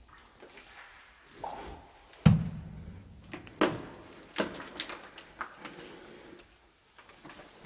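Footsteps and knocks on a debris-strewn concrete floor: a heavy thump about two seconds in, then several lighter, irregular knocks.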